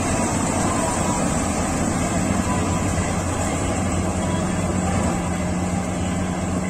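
Kartar 4000 Crop Cruiser combine harvester running while it cuts paddy, a steady machine drone of engine and threshing gear. A steady low hum joins in about four seconds in.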